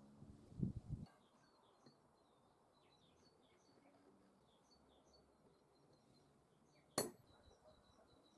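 Mostly quiet handling of a steel coupling nut, with a couple of dull knocks about a second in and one sharp metallic clink about seven seconds in. Small birds call faintly in the background throughout.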